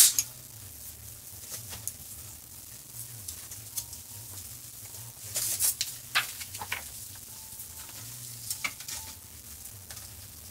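Sheets of printer paper rustling and tapping as they are handled and loaded into a laser printer's paper tray, in scattered bursts, the loudest about five to six seconds in, over a low steady hum.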